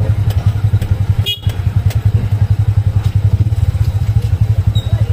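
Motorcycle tricycle's small engine running with a fast, steady low pulse, heard from inside the sidecar, with a brief break about a second and a half in.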